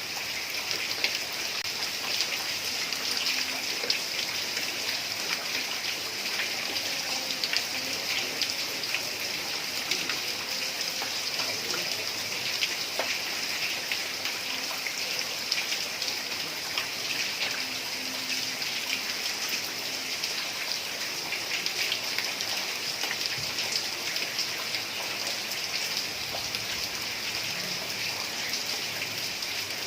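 Heavy rain pouring steadily onto a tiled roof, a dense patter of drops with many small sharp ticks.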